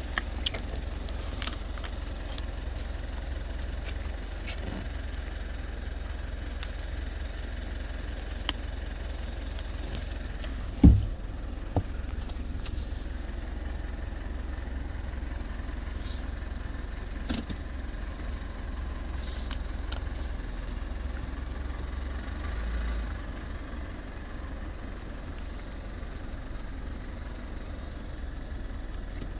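Steady low wind rumble on the microphone, with scattered crunches and clicks as a horse bites and chews a green apple. One sharp knock about eleven seconds in is the loudest sound.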